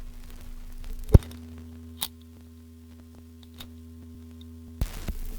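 Phonograph record being changed over: a sharp click about a second in and a smaller one a second later as the needle comes off, a steady turntable hum with faint ticks, then the needle set down near the end and record surface noise returning.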